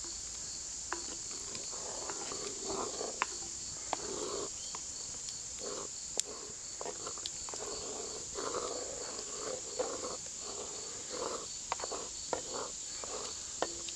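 Wooden spoon stirring and scraping through potatoes and vegetables mixed into hot water in a cast iron Dutch oven, with irregular sloshing and occasional sharp knocks against the pot. A steady high chorus of insects runs underneath.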